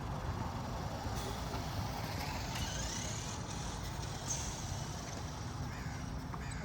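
Small electric motor of a toy RC truck whirring faintly, rising and falling in pitch, over a steady low rumble.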